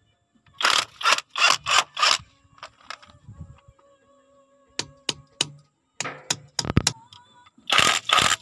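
Rapid scraping strokes in three bursts, with a few sharp clicks between the bursts.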